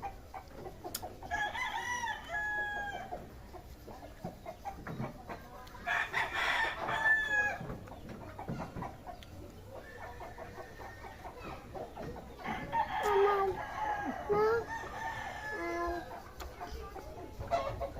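A rooster crowing three times, several seconds apart, each crow a drawn-out pitched call; the last is more broken up, with lower clucking notes mixed in.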